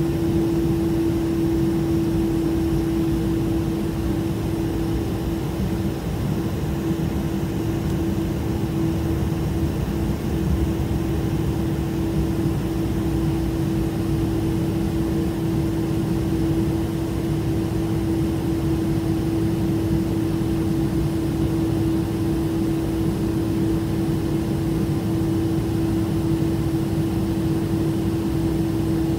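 Cabin noise inside a Boeing 747 as it taxis: a steady low rumble from the engines and air system, with a constant hum over it.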